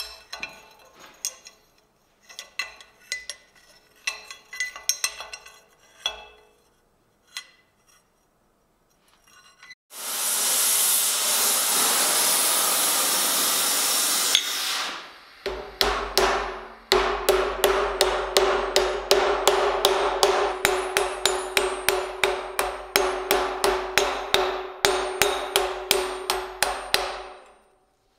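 Blacksmith's hammer striking red-hot steel tong jaws: a few scattered blows. Then a gas torch hisses steadily for about five seconds. Then comes fast, even hammering, about three blows a second with a ringing note, as the jaws are driven into the V-groove of a steel swage block.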